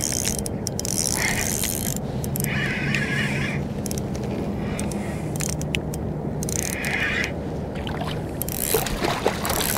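Spinning reel being cranked against a hooked fish, its noise coming in several short spells, with water splashing near the end as a black sea bass breaks the surface beside the kayak.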